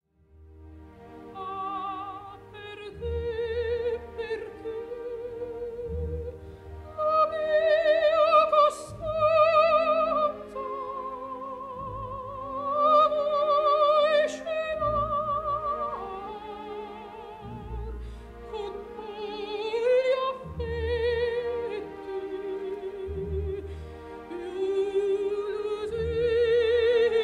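Operatic singing with a wide vibrato on long held notes, over instrumental accompaniment.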